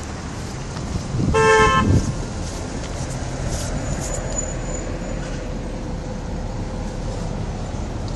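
A car horn gives one short toot about a second in, over a steady low rumble of engine and traffic noise.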